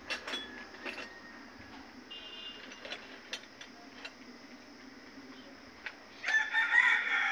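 A rooster crowing: one long call starting about six seconds in, after a few scattered clicks and knocks.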